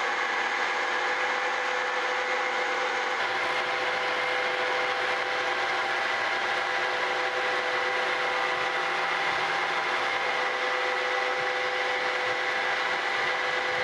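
Vertical milling machine running with an end mill taking a light finishing pass, a couple of thousandths deep, along the end of a metal plate: a steady whine over a hiss of cutting. A lower hum joins about three seconds in.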